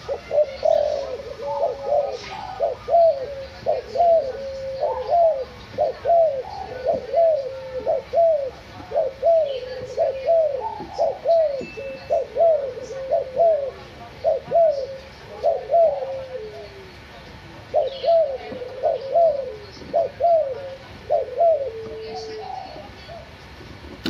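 White backspot colour-morph spotted dove (derkuku) cooing in a long, rapid series of short hooked coos, nearly two a second, with a brief pause about two-thirds through. This is the bird's 'cetetan' calling, a sign of a keen, frequently singing (gacor) male.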